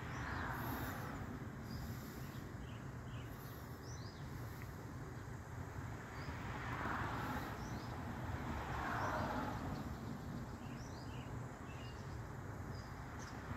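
Neighbourhood outdoor ambience: a steady low hum of distant traffic that swells a few times, with small birds giving short chirps here and there.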